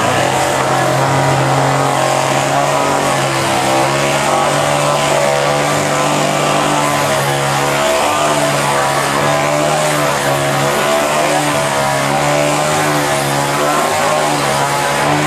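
Small two-stroke chainsaw engine running at a steady, fairly high speed, its pitch wavering a little, with a brief dip about eight seconds in.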